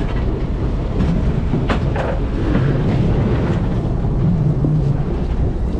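A fishing trawler's engine running steadily with a low drone, with a couple of sharp knocks about two seconds in as the laden trawl net is hauled aboard.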